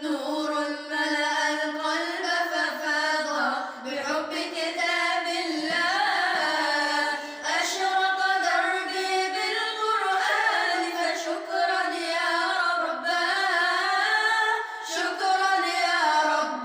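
A high voice singing an Arabic religious song (nasheed) with no instruments, drawing out long, ornamented notes that bend and slide in pitch.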